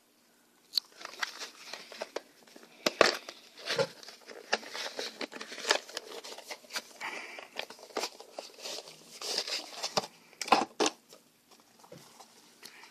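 Cardboard boxes and packaging handled close to the microphone: irregular rustling and crinkling with sharp clicks and knocks, starting about a second in.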